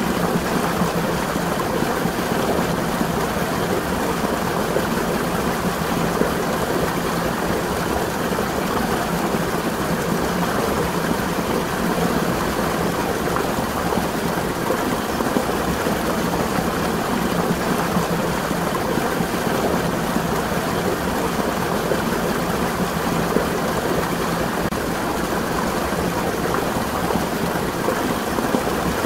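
Water from a spring running steadily, an even, unchanging splashing noise.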